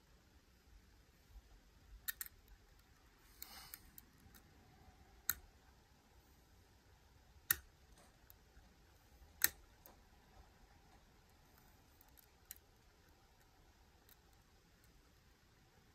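Lock pick working inside a Miwa U9 lock: a handful of small sharp clicks, spaced a couple of seconds apart, with a short scraping rasp near the start.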